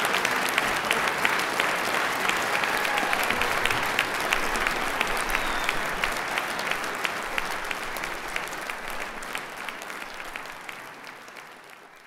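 Audience applauding, a dense patter of many hands clapping that gradually dies away over the last few seconds.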